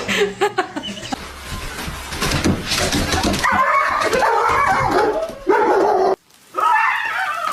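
A dog barking and whining in short calls. The sound cuts out abruptly for a moment about six seconds in, then the dog sounds resume.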